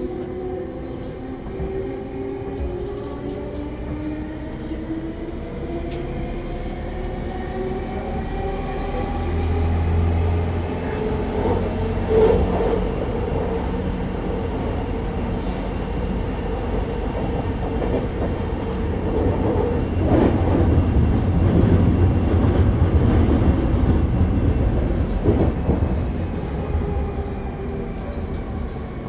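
209 series electric train heard from inside the car: the MT68 traction motors and GTO-VVVF inverter whining in several tones over the rumble of the wheels on the rails, louder in the middle stretch. A thin high squeal comes in near the end.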